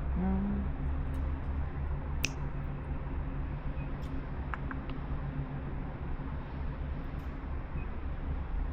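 A cat gives a short meow right at the start, then a steady low rumble continues with a few faint clicks.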